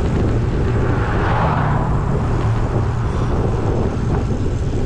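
Steady rush of wind and road noise on the microphone of a camera riding on a road bicycle, buffeting heavily in the low end.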